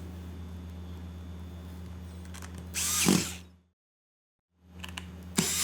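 Small electric screwdriver running steadily with a low hum while driving the laptop lid's bezel screws, with a louder burst about three seconds in and another near the end. The hum cuts out completely for about a second, then resumes.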